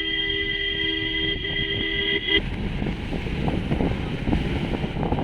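A vehicle horn blares as a steady two-note tone with a brief dip partway through, cutting off sharply a little over two seconds in. After that comes the uneven, knocking noise of a jeep jolting over a rough off-road track.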